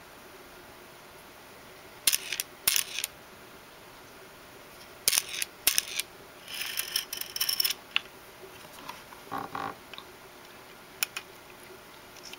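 Daisy Model 1894 BB gun being handled close up: sharp metal-and-plastic clicks in small clusters about two seconds in and again about five seconds in, then a short rattle of quick clicks and a few scattered clicks near the end.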